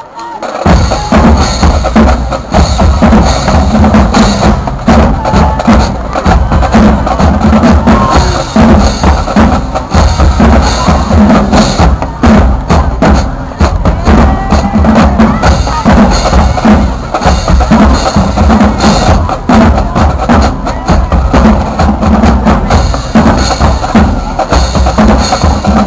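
High school marching drumline playing a loud, fast cadence on snare and bass drums. It starts suddenly about half a second in.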